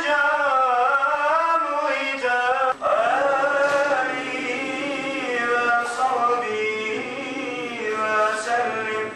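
A man's solo voice chanting a Turkish mevlit recitation in long, ornamented, melismatic phrases, with a short breath about three seconds in.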